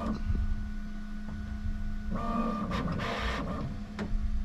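Bambu Lab AMS feeder motor running under a steady hum as it tries to pull the loaded filament back, whining louder for about a second midway, with a click near the end. The retract fails because broken filament is stuck inside the AMS.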